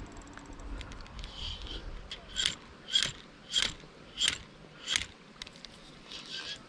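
Spinning reel ratcheting in short, regular spurts, about five in a row at roughly two-thirds of a second apart, as the line snagged on an underwater pipe is worked against the reel.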